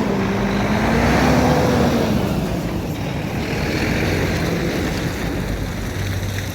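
Dump truck's diesel engine and road noise while driving; the engine's pitch swings up and down over the first two seconds, then the noise settles into a steady run and slowly fades.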